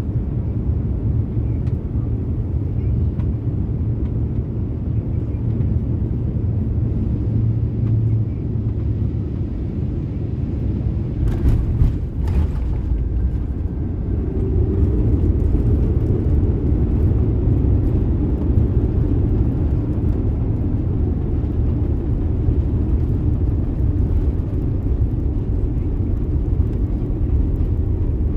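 Cabin noise of an Asiana Airlines Airbus A350 landing: a steady low rumble of engines and airflow, two sharp knocks about eleven and twelve seconds in as the wheels touch down, then a louder roar from about fourteen seconds in as reverse thrust and braking slow the plane on the runway.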